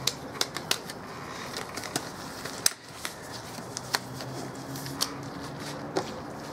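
Thin disposable gloves being pulled on by hand: rubber rubbing and rustling, with sharp snaps and clicks about once a second, the loudest about two and a half seconds in.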